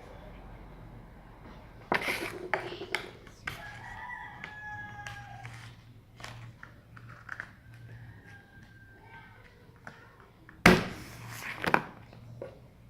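A rooster crowing several times in the background, with drawn-out calls about a second long. Loud sharp clatters of handling noise break in about two seconds in and, loudest, near the end.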